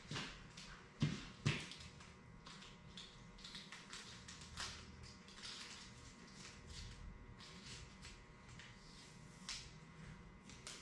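Quiet room tone with a faint steady hum, scattered light clicks and taps, and two sharper knocks about a second in.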